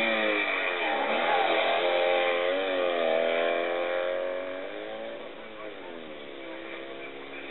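DB Le Mans sports car's Panhard flat-twin engine revving hard under racing load, its pitch climbing and dropping several times with the gear changes. The sound fades about four and a half seconds in as the car pulls away.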